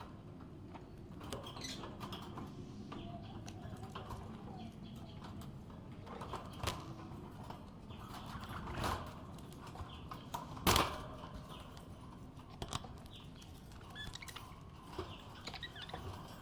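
Budgerigar chirping quietly and sporadically, with a few short sharp sounds, the loudest about two-thirds of the way in.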